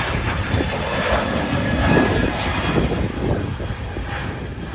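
Jet airliner's engines at takeoff thrust as it climbs away, a steady loud rushing noise that eases slightly near the end.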